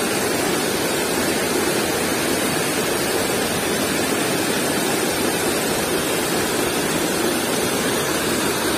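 Steady rush of flowing river water over rocks.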